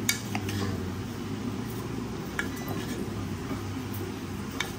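Metal spoon scraping and clicking against a plastic cup and paper funnel while spooning freshly blended ground white pepper, a handful of light clicks over a steady low hum.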